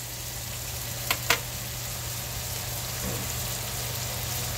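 Bacon, garlic and sliced jalapeños frying in a stainless steel pot, a steady sizzle with a low hum underneath. Two light clicks come about a second in.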